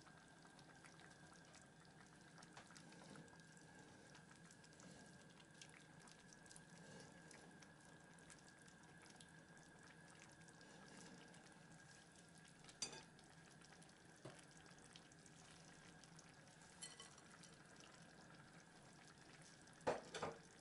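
Faint stirring of vegetables in a deep non-stick sauté pan with a plastic slotted spatula, over a low steady hiss, with a few light knocks against the pan about two-thirds of the way through and a sharper double knock near the end.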